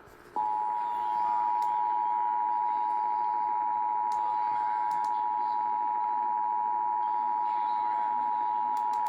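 Emergency Alert System attention signal: the steady two-tone 853 and 960 Hz alarm tone, starting about half a second in and holding unchanged. It signals the start of an emergency alert, here a flash flood warning.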